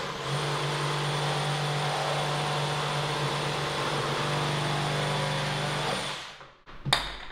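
Cordless reciprocating saw cutting through a wooden board at a steady speed, winding down about six seconds in as the offcut comes free. A single sharp knock follows about a second later.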